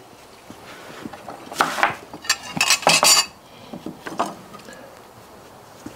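Metal cookware clattering: a few bursts of clinks and clanks, the loudest between about two and three seconds in.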